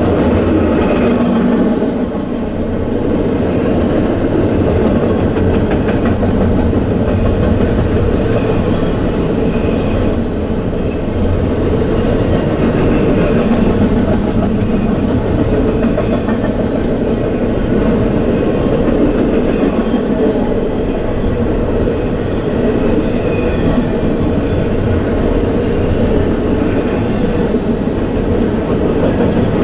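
A double-stack container freight train rolling past: a steady, loud noise of steel wheels running on the rails, with repeated clicks as the wheels cross rail joints.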